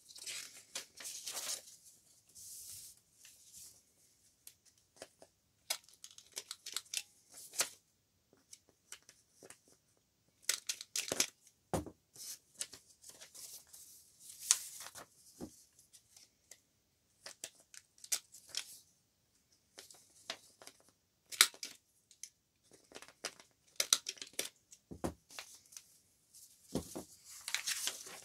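Sheets of paper being handled and sorted by hand: irregular bursts of rustling and sliding as the sheets are picked up, shuffled and laid down, with brief pauses between them. There are a few sharp taps, the loudest a little before the middle and again about three-quarters of the way in.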